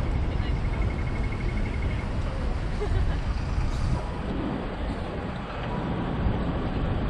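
City street traffic: the steady rumble and road noise of passing cars and larger vehicles, with a rapid high-pitched beeping during the first two seconds.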